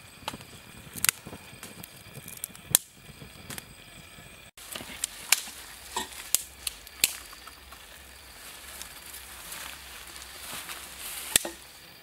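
A small fire of dry grass and twigs crackling, with scattered sharp snaps. After an abrupt cut, more irregular sharp clicks and snaps come from handling a knife and dry sticks.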